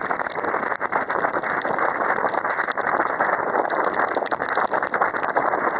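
Hurricane wind gusting hard across the microphone, a loud, dense rushing noise full of rapid crackles, with wind-driven rain and spray mixed in.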